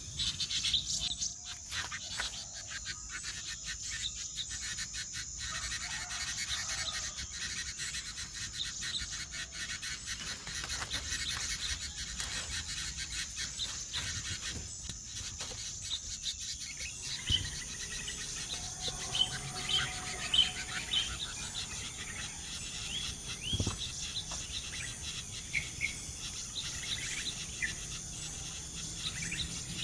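Outdoor wildlife sound: a steady high insect buzz, with small birds chirping in short calls that grow more frequent about halfway through.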